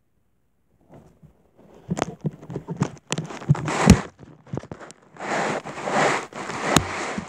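Handling noise close to the recording device's microphone. After about a second of silence come irregular clicks and rustling, with a few sharp knocks and a longer stretch of rustling near the end.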